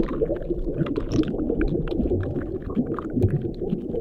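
Underwater sea ambience: a dense low bubbling rumble with many scattered short clicks and pops.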